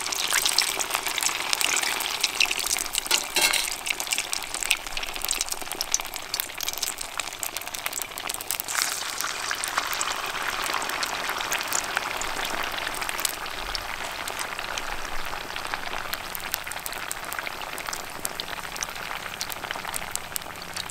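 A sago (sabudana) vada sizzling in hot oil in a steel kadai, with many small pops. The sizzle is loudest just after the patty goes in, then settles to a steady frying sound.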